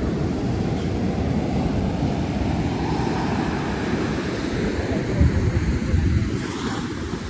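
Wind buffeting the microphone with a steady low rumble, over the wash of sea surf. The rumble gusts stronger about two-thirds of the way through.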